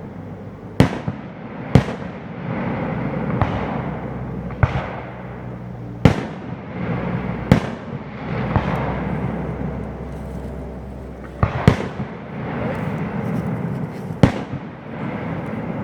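Fireworks display: sharp aerial shell bursts every second or two, each ringing out as an echo, over a steady crackle and rumble of further shells.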